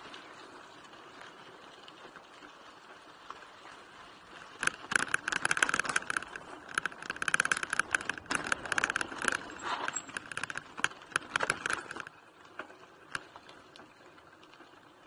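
Mountain bike rattling and clicking as it rolls over a rough dirt trail: a dense run of rapid, irregular metallic clicks from about five seconds in to about twelve seconds, with softer rolling noise before and after.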